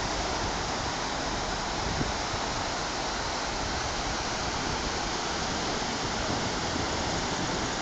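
Steady rushing of sea surf, an even roar with no single wave standing out.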